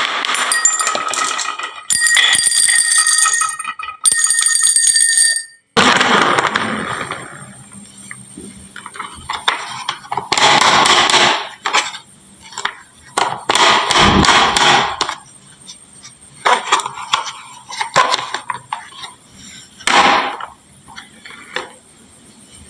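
A small metal bell ringing in several abruptly cut stretches for the first six seconds or so. Then glass marbles clatter and click down a HABA wooden marble run in irregular bursts and drop into toy trucks.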